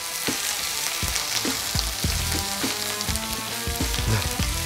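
Pork neck and baby vegetables sizzling in browned butter in a frying pan, with short knocks of a spoon against the pan as the vegetables are spooned in and moved around.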